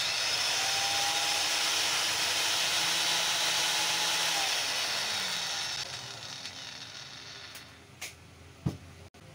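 Dongcheng DZE03-110 4-inch marble cutter's brushed universal motor running free at full speed, a steady high whir, then winding down with a falling pitch after about five seconds. This is a no-load test run after its field coil was replaced. Two short knocks come near the end.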